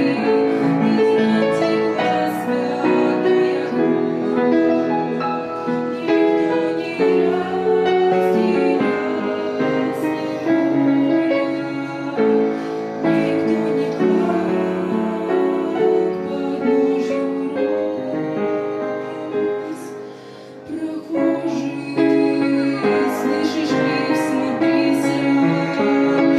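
Music: a song sung by a woman's voice over piano accompaniment, dipping briefly quieter about twenty seconds in.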